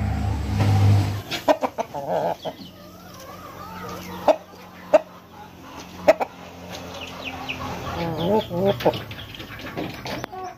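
Chickens clucking, with a few sharp knocks in the middle and a low rumble in the first second.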